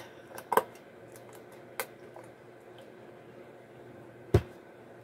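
Handling of a small plastic container: a couple of sharp clicks and light taps, then one loud thump about four seconds in as something is set down or knocked.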